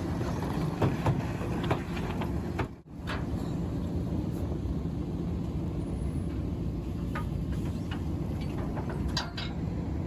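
Diesel engine of heavy earthmoving machinery running steadily, with scattered clanks and knocks. The sound breaks off for a moment about three seconds in, then carries on.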